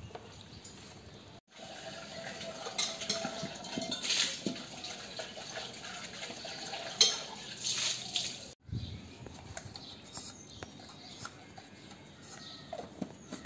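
Cooking oil being poured from a bottle into a pot set over a wood-fired rocket stove.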